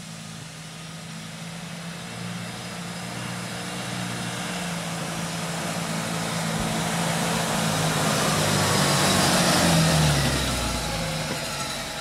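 Suzuki Vitara 4x4's engine pulling steadily as it drives up the track toward the microphone, growing louder until it is close by about ten seconds in, where its note drops, then easing off.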